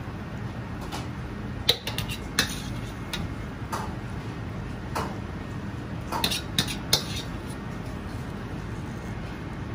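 A metal ladle clinking and tapping against a ceramic ramen bowl as thick starchy sauce is ladled over the noodles. The sharp clinks are scattered, with a quick cluster about two-thirds of the way through, over a steady low kitchen hum.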